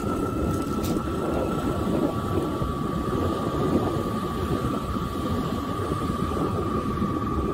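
Aeolian harp strings singing one steady high tone in the wind, over heavy wind rumble on the microphone.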